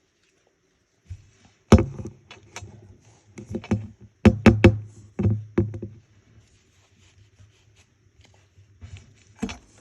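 Sharp plastic clicks and knocks from a plastic toy doll and its surprise capsule being handled and pried at. There is a quick run of about a dozen after the first second or so, a few faint ticks, then a couple more knocks near the end.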